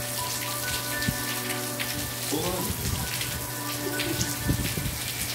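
Steady rain falling and pattering on tiled paving, with a faint steady hum beneath it.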